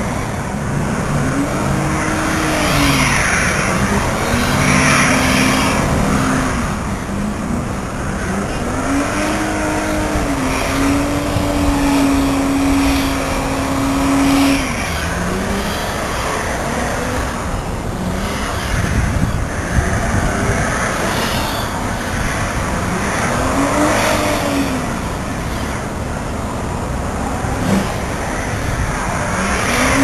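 A car engine revving again and again, each rev swelling up in pitch and falling back, with one rev held high for about three seconds near the middle, over a steady hiss of road noise.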